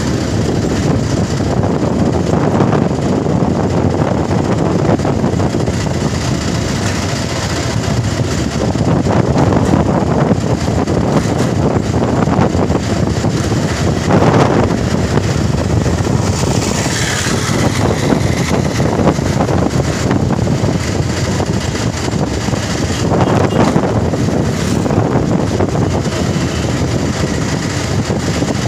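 Steady, rough rumble of wind on the phone's microphone, rising and easing in slow gusts.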